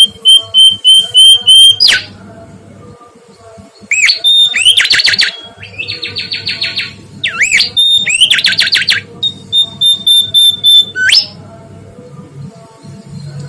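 Mangrove whistler singing: a run of short, evenly spaced whistled notes, then loud rising and falling whistled phrases and a fast trill, with a pause near the end.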